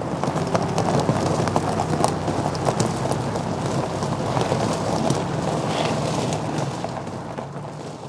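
Citroën C4 Picasso driving slowly away over gravel: the tyres crunch on the loose stones over the steady low hum of the engine, fading toward the end.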